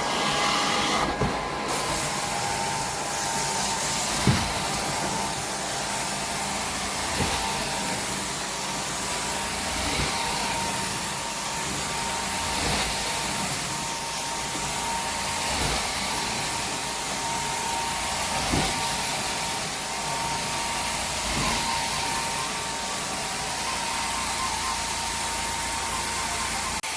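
Carpet-cleaning machine running steadily with a high whine, with a soft low thump about every three seconds.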